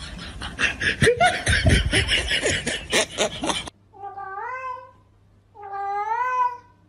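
A noisy stretch of sharp clicks and knocks with voices, then after a sudden cut two long, wavering cat meows, a cat sound played to the cats.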